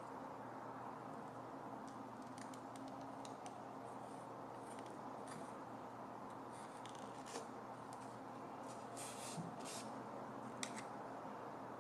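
Thin wooden stick scraping stripped paint sludge from the metal base of a dial-indicator stand, a series of short, faint scratchy scrapes and clicks over a steady background hum. The scrapes start about two seconds in, come thickest in the last few seconds, and include one sharper click near the end.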